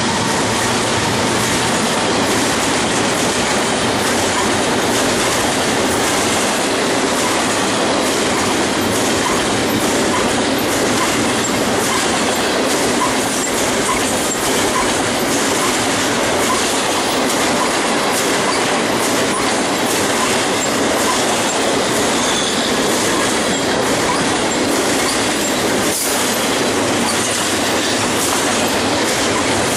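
A double-stack intermodal freight train's well cars rolling past close by at speed: a steady, loud rumble of steel wheels on rail with repeated clacks from the trucks.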